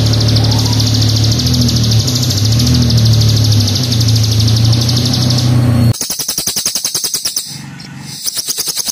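Recorded songbird calls: a fast, high buzzing trill over a low steady hum for about six seconds, then an abrupt switch to a harsh, rapid clicking rattle that pauses briefly and resumes.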